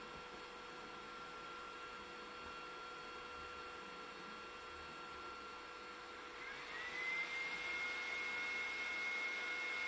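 Ender-3 V3 3D printer running through its pre-print calibration, giving a steady whir with thin high-pitched whines. About two-thirds of the way in, a new whine rises in pitch and settles at a higher, steady note, and the sound gets a little louder.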